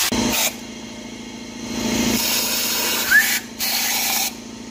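Three short bursts of hissing spray from a nozzle aimed into the cylinder head's ports to clean them, each starting and stopping abruptly, over a steady low hum.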